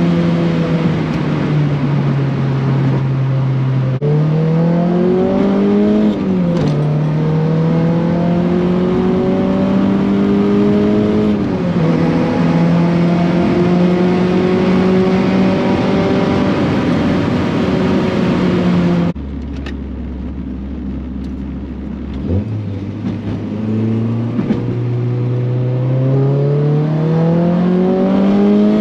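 Engine-swapped Honda Civic with a 3-inch stainless exhaust, heard from inside the cabin while accelerating. The engine note climbs and then drops back at each upshift, twice in the first dozen seconds. About two-thirds through the sound changes abruptly to a quieter stretch, then the engine pulls up steadily from low revs again and shifts near the end. There is no exhaust drone: the owner credits this to sealing a leak at the exhaust's V-band flange.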